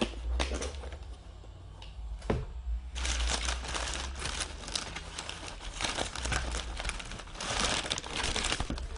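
Handling of a trading-card box and its packaging: a few sharp clicks and taps, then from about three seconds in steady crinkling and rustling of plastic and paper as the cards are unwrapped.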